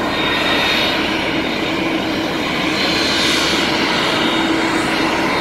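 Airbus airliner's jet engines running at taxi power: a steady rushing noise with a high whine held level throughout.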